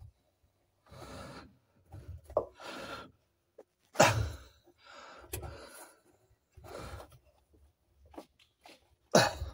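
Hands working a fuel-line fitting loose on top of a car fuel tank: intermittent rubbing and scraping noises, with a sharp click about four seconds in and another near the end.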